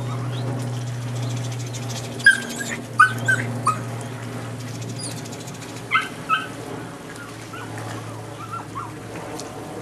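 Belgian Malinois puppy whining and yipping: short high-pitched cries in quick runs about two to four seconds in and again around six seconds, with a few fainter ones near the end, over a steady low hum.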